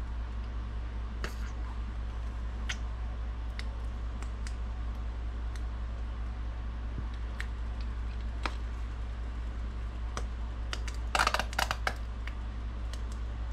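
Small plastic clicks and taps from a measuring spoon and mustard squeeze bottle over a steady low hum. Near the end comes a brief sputtering squirt as mustard is squeezed from the bottle.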